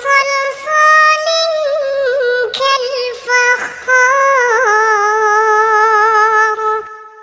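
A high singing voice holding long, wavering notes that step down in pitch, fading away near the end.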